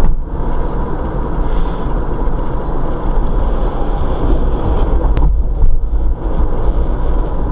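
Car driving at speed heard from inside the cabin: a steady low rumble of engine and tyres on the road surface, with a short click about five seconds in.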